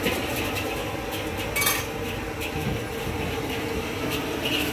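Dishes and utensils clinking now and then, with one sharp clink about a second and a half in, over a steady background hum.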